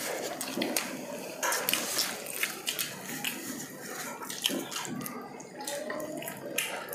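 Wet chewing and lip smacks of people eating saucy pork ribs, with many small sharp clicks.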